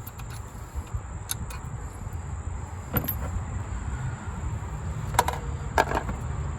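A few scattered sharp clicks and knocks of hand work on engine-bay parts, as a pipe joint is worked loose, over a steady low background rumble.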